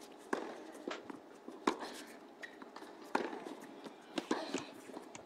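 Tennis ball bounced on a hard court by the server before her serve: several sharp knocks, unevenly spaced, some half a second to a second apart and two close together near the end.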